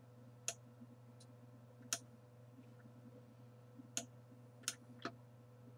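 Computer mouse button clicking, about six sharp single clicks at irregular intervals, over a faint steady hum.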